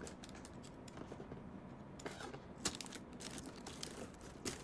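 Packing tape being peeled by hand off a cardboard box, with the cardboard flaps rustling as they come open: a faint crackling tear that picks up about two seconds in, with a few sharp clicks.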